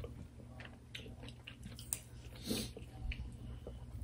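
Faint chewing and mouth sounds of people eating rice and curry by hand, with small clicks and a short breathy burst about two and a half seconds in.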